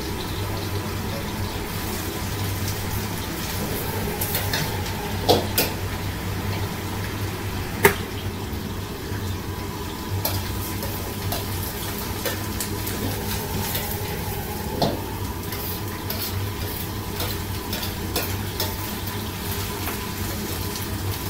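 Sliced vegetables sizzling in oil in a wok while a steel wok ladle stirs them, with a few sharp clanks of the ladle against the wok. A steady low hum runs underneath.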